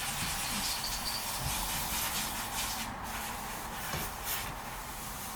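Steady hiss of water running, as from the hose feeding cooling water through the outboard motor.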